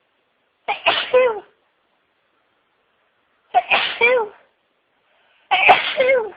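A woman sneezing three times, about three seconds apart, as part of a long sneezing fit. Each sneeze is loud, with a sudden start and a pitch that falls away at the end.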